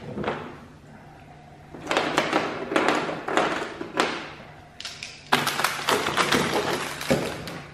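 Plastic tail light housing clattering and scraping in hand against the pickup's rear corner as it is worked into place: dense runs of clicks and knocks, one short burst at the start, then two longer busy stretches.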